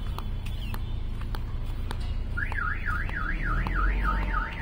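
A vehicle's electronic alarm wails, its tone sweeping rapidly up and down about four times a second. It starts about halfway in, over a steady low traffic rumble.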